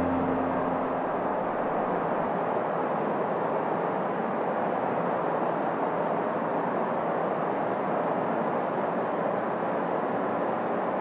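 Steady rushing noise without any clear pitch. The tail of a keyboard chord fades out over the first second.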